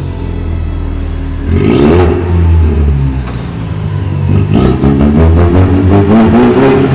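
Ford Mustang 2.3 EcoBoost turbocharged four-cylinder revving through a tuned exhaust with a vacuum-operated valve: a short blip about a second and a half in, then a longer rev building from about four seconds in. It burbles and pops on the overrun.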